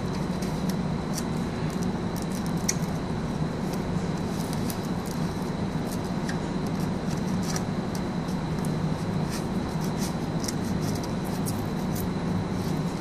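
Light scattered clicks and rattles of a mesh screen and small parts being handled and fitted over a light fixture's cooling fan, over a steady low hum with a faint high whine.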